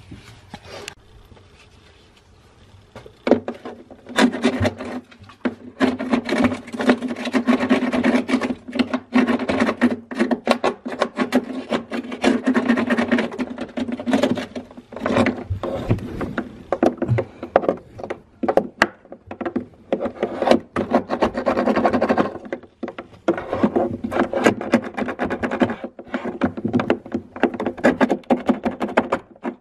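A plastic-coated wire being pushed and worked up and down in a fridge-freezer's defrost drain hole, rubbing and scraping against the plastic in quick, irregular strokes with a rasping, squeaky tone. It starts about three seconds in. This is the drain being cleared of an ice blockage.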